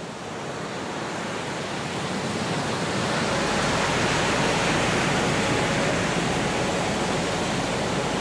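Sea waves washing, a steady rushing noise that fades in and swells over the first three seconds, then holds.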